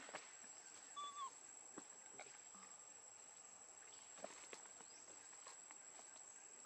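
Near silence: quiet forest ambience with a steady high-pitched insect drone, one short chirp about a second in, and a few faint ticks.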